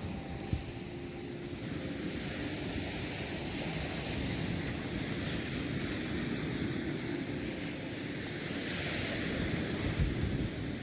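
Black Sea surf washing onto the shore, swelling twice, with wind buffeting the microphone and a couple of short low thumps.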